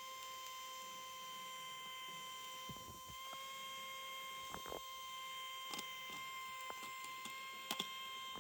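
Steady electrical hum with a high whine of several even tones, broken by a few faint short clicks.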